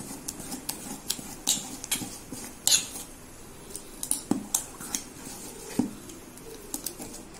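Metal ladle stirring thin fermented rice batter in a stainless steel vessel, clinking and scraping against the sides in short, irregular clicks.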